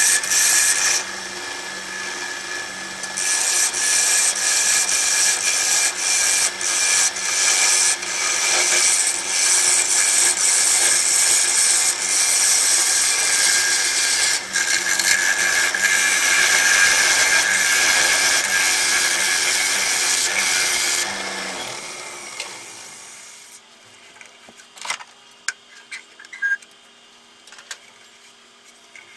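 Bowl gouge cutting the inside of a large jacaranda bowl spinning on the lathe: a steady hissing scrape of wood being cut, over a faint whine from the lathe, with a few short breaks. About 21 seconds in the cutting stops and the sound dies down, leaving a few light knocks and handling noises.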